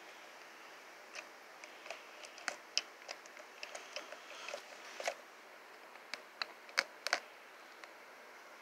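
Scattered small, sharp clicks and taps over a faint steady hiss, thickest between about one and seven seconds in, then stopping.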